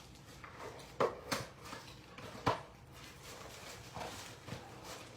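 Quiet handling noise from unboxing: a few light knocks and taps, two about a second in and a sharper one near two and a half seconds, with faint rustling.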